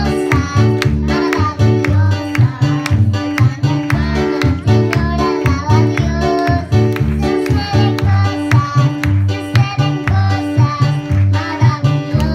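A young girl singing a Spanish-language worship song over loud accompaniment music with a steady, repeating bass pattern.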